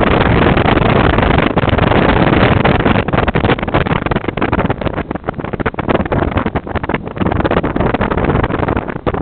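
A moving car's road and wind noise, heard from inside, rushing over the microphone. It is steady at first and turns gusty, with brief dips, about halfway through.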